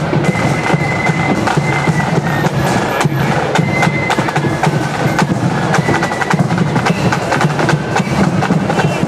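Marching flute band playing: a tune on flutes over snare drum rolls and bass drum beats.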